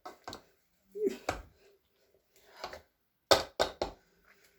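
A series of sharp knocks and clatters, the loudest three coming in quick succession a little past three seconds in.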